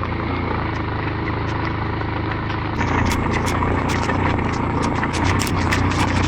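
Motorcycle engine running on the move, with rushing air over it. About three seconds in it grows louder, and many short sharp ticks come in.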